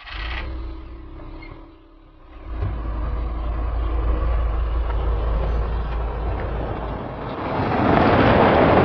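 Volkswagen police sedan running with a steady low engine rumble, then pulling away over a dirt road. Near the end, engine and tyres rise into a loud rush as the car passes, then fade.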